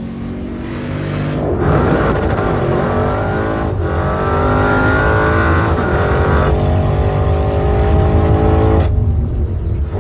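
Porsche Cayenne Turbo GT's 4.0-litre twin-turbo V8 accelerating hard. The engine note climbs in pitch and drops back at each upshift, several times.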